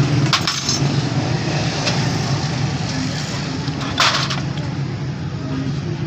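Motorcycle engine running steadily, with sharp metallic clinks about half a second in and a louder one about four seconds in.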